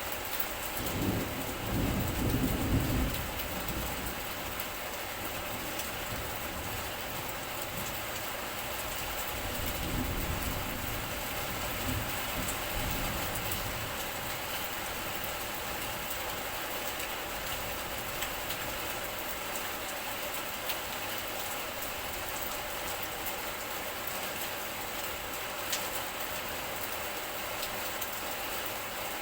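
Steady rain falling, an even hiss throughout, with a low rumble about a second in and again around ten seconds in.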